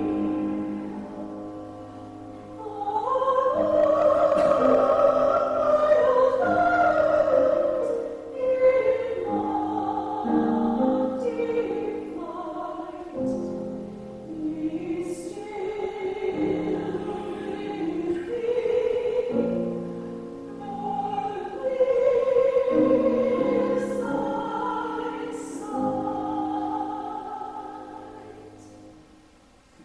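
Mixed-voice vocal quartet singing a sacred piece in harmony, with long held notes; the final chord fades out near the end.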